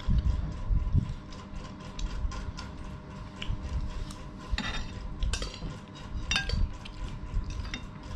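Spoons clicking and scraping against plates and a metal tray during a meal, with scattered small clicks throughout and a few ringing clinks around the middle. There are heavier low knocks in the first second.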